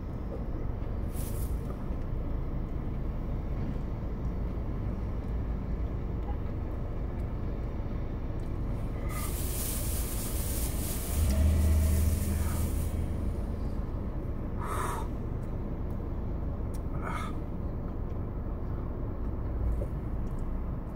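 Steady low rumble of vehicle noise, with a sharp hiss starting about nine seconds in and lasting a few seconds, a louder low hum overlapping it, and a few short breathy sounds near the end.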